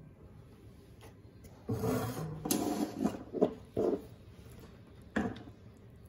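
Wooden spoon scraping and knocking against a frying pan as thick fruit cake batter is tipped out into a lined cake tin. The scrapes and dull knocks come in a cluster from about two seconds in, with one more short knock near the end.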